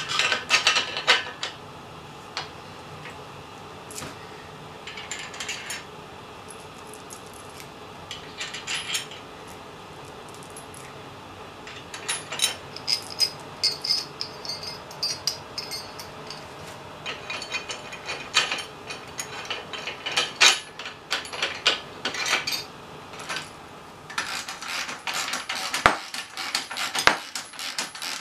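Metal bolts, nuts and U-bolts clinking and rattling against a metal boom-to-mast bracket plate and square aluminium boom as the bracket is fitted together by hand. The clicks come in scattered clusters with quiet gaps, busiest in the last few seconds.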